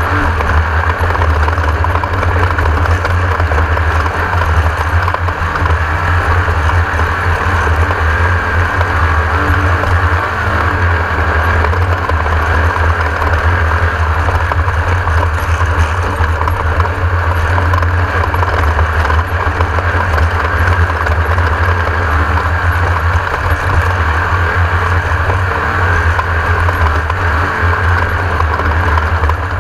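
Class 1600 off-road race buggy running at speed: its air-cooled 1600 cc Volkswagen engine and driving noise, loud and steady with a heavy low rumble throughout.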